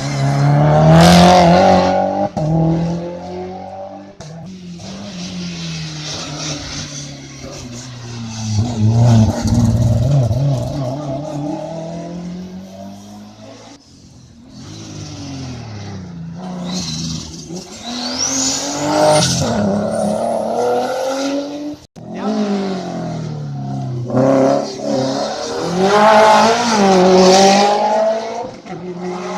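Hill-climb race cars accelerating hard past one after another, their engines revving up through the gears and falling away again. Four loud passes, with abrupt breaks between some of them.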